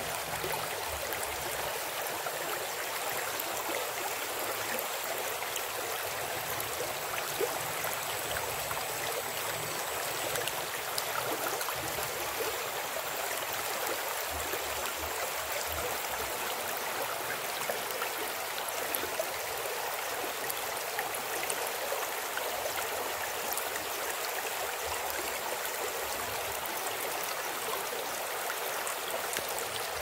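Shallow stream running over a stony bed: a steady rush and babble of water.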